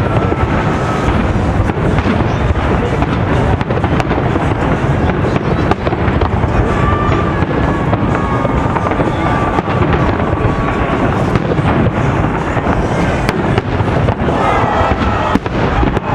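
Aerial fireworks shells bursting in quick succession, their bangs overlapping without pause into a continuous barrage.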